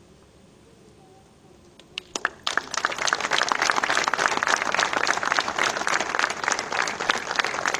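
Audience applauding: a few scattered claps about two seconds in, then quickly building into dense, steady applause.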